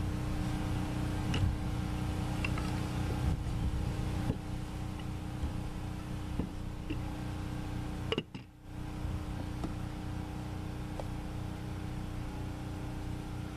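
Steady drone of an engine running at constant speed, with a few faint light clicks over it and a brief dip in the sound about eight seconds in.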